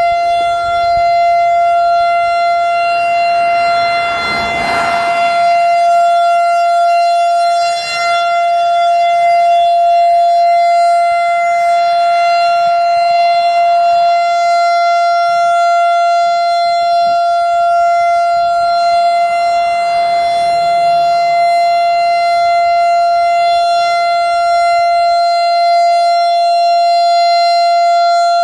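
Outdoor emergency warning siren around the Turkey Point nuclear plant, holding one steady, unwavering tone during a scheduled siren test.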